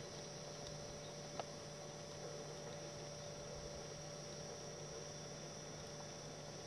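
Faint steady hum with a constant hiss, and a single short click about one and a half seconds in.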